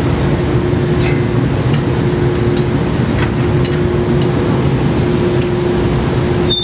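Drilling rig floor machinery running: a loud, steady drone with a constant hum. A few light metallic clinks, from tools and pipe, are scattered through it.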